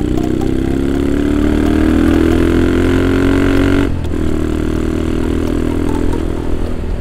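Yamaha Scorpio's single-cylinder four-stroke engine under way, its note rising steadily as the bike accelerates, then dropping abruptly about four seconds in at a gear change and running on steadily at a lower pitch.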